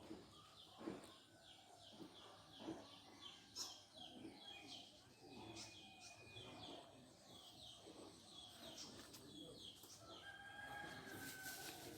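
Faint birds chirping: many short, quickly falling chirps repeating, with a few soft knocks in the first few seconds.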